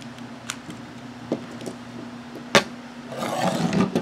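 Light plastic clicks and knocks of a Lego motorcycle model being handled and set down on a table, the loudest knock about two and a half seconds in, followed by a short scraping rush near the end.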